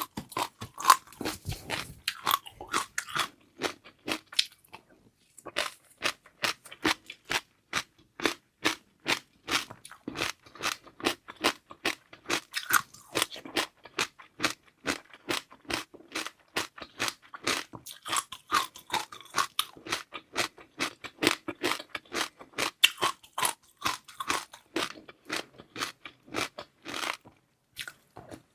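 Close-miked crunching and chewing of a dessert of seaweed pearls and black jelly: rapid, continuous crisp crunches and wet chews, with brief pauses about five seconds in and near the end.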